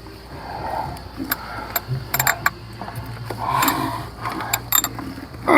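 Ratchet wrench clicking in short irregular runs with light metal-on-metal clinks, turning a 10 mm bolt on a fuel pressure regulator.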